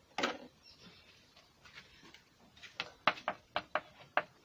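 Kitchen knife chopping spring onions on a plastic cutting board: a run of about six sharp knocks in the last second and a half, roughly four a second. A single clatter comes shortly after the start.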